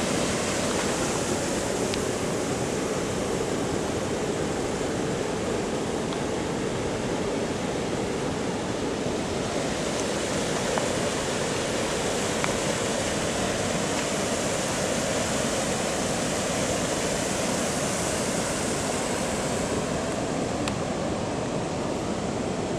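Steady, even rushing noise throughout, with a few faint ticks and no clear events.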